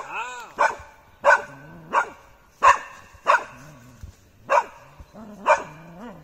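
Polish Hunting Spaniel barking repeatedly at a wild boar dummy: about eight sharp barks, more than one a second, with rising-and-falling whining yelps between them. This is the dog baying at the boar.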